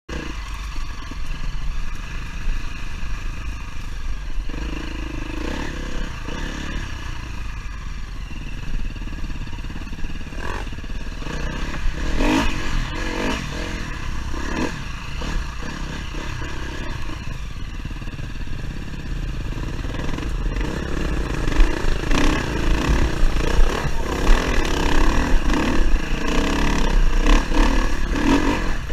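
Dirt bike engine running steadily on a rough forest trail, with wind rumble on the microphone and clattering from the bike over the ground. It gets louder and rougher in the last third.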